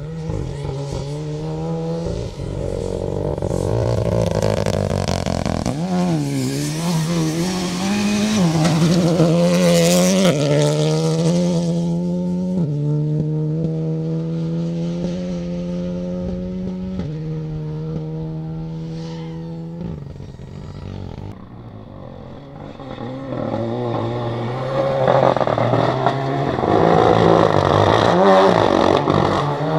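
Renault Clio Rally3 rally car's engine revving hard on a gravel stage, its pitch rising and falling and stepping with gear changes, with gravel scraping and clattering under the tyres. It goes quieter past the middle, then louder and rougher near the end.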